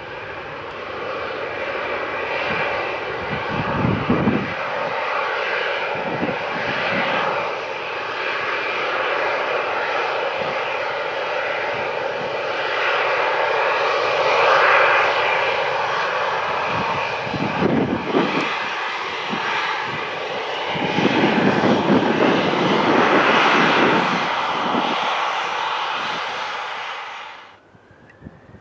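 Boeing 737-800's CFM56-7B turbofan engines running at low power as the jet rolls toward the listener: a steady jet whine with several held tones and a deeper rumble that swells at times. The sound cuts off suddenly about a second before the end.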